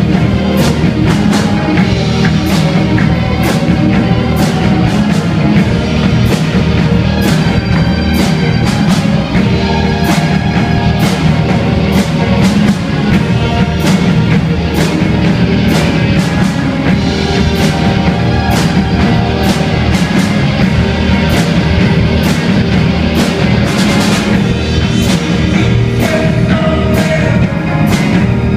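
Live rock band playing loud and steady: drum kit with regular cymbal and snare hits, electric guitars and keyboard.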